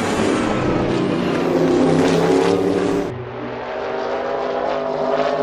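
Race car engine revving in several rising sweeps, then about three seconds in dropping to a quieter engine note that climbs slowly.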